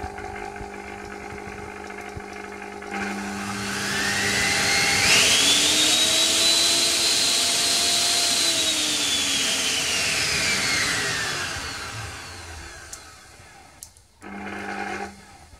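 Small fruit-juicer electric motor run through a drill's variable-speed trigger switch. It hums at low speed, then whines up in pitch as the trigger is squeezed about three seconds in, holds at full speed, and winds back down from about eight seconds until it nearly stops. A short low hum comes back near the end.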